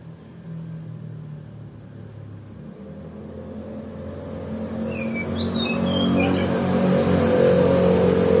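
Motor vehicle engine running, getting steadily louder through the second half. About five to six seconds in, a kacer (oriental magpie-robin) gives a few short whistled notes.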